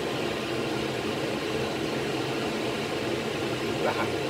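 Steady fan hum and hiss.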